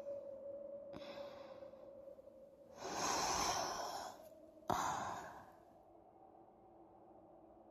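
A person's heavy breathy sighs: a faint breath about a second in, then a long loud exhale lasting over a second, and a second sudden, shorter one that fades away. A faint steady hum runs underneath and stops partway.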